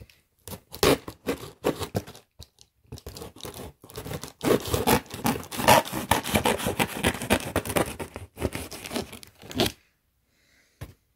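Packing tape being torn and peeled off a cardboard box, with the cardboard scraping and crackling: a few short rips, then several seconds of dense tearing that stops sharply near the end.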